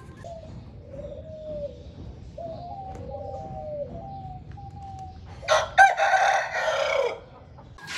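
A rooster crows loudly once, about five and a half seconds in, for just under two seconds. Before it come fainter, long drawn-out calls from other fowl.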